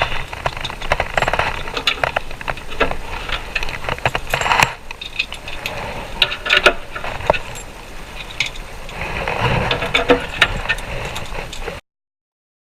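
Metal cam locks rattling and clicking as they are handled and fitted into a cabinet panel's pre-drilled holes with a screwdriver. The sound is a busy run of clicks, taps and scrapes, and it cuts off suddenly near the end.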